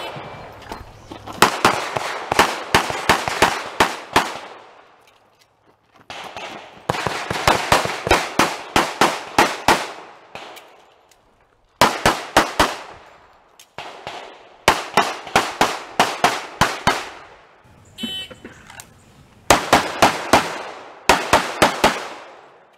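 Pistol fire at a practical shooting stage: several quick runs of handgun shots, several a second, each run followed by a short pause. Every shot leaves a brief echoing tail.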